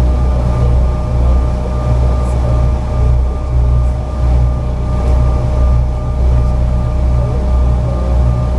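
Cabin noise inside a Bombardier CRJ-900 standing still on the ground: a steady low rumble with a constant whine, from its rear-mounted GE CF34 turbofan engines at idle.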